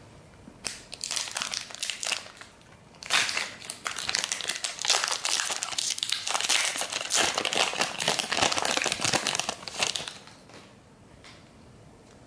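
Shiny foil wrapper of a trading-card pack crinkling as it is torn open and the cards are pulled out: a few short crinkles in the first two seconds, then a dense run of crinkling from about three seconds in until about ten seconds in.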